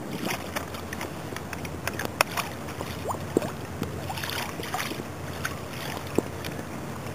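Water lapping and dripping around a plastic sit-on-top kayak: small splashes, a few rising drip plinks, and scattered sharp light knocks, three of them louder than the rest.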